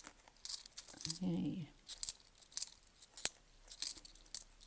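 10p coins clinking against one another as they are handled and sorted by hand, in irregular sharp chinks, with one louder clink a little past three seconds.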